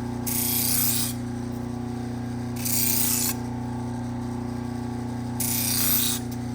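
Electric sharpening machine's motor humming steadily while a steel knife blade is drawn across it three times, each pass a short hiss under a second long, about two and a half seconds apart.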